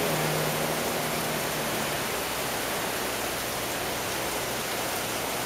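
Hurricane rain band: heavy wind-driven rain and gusting wind making a steady, even hiss. A low hum from a passing car fades out about two seconds in.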